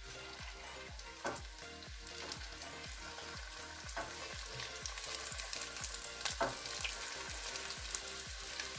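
Vegetable spring rolls deep-frying in hot oil: a steady bubbling sizzle that flares into a louder crackle a few times as more rolls are lowered into the oil.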